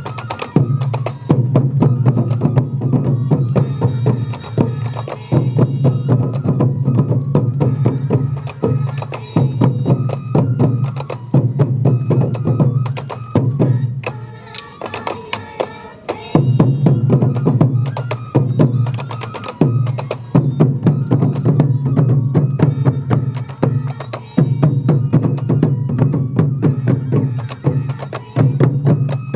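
Sansa odori festival music: many taiko drums beaten together in a quick, steady rhythm, with a high bamboo flute line over them. The drumming drops away briefly a little before halfway, then comes back in full.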